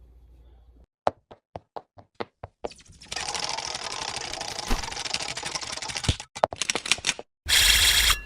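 A run of sharp clicks, about four a second, then a few seconds of dense crackling noise, more rapid clicks and a short loud burst near the end.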